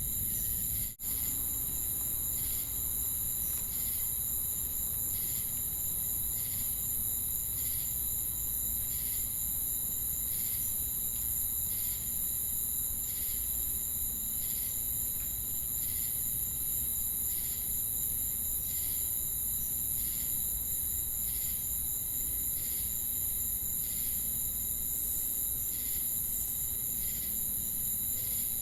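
Crickets and cicadas calling together: a steady high-pitched drone with a regular pulsing chirp about one and a half times a second. A brief dropout about a second in.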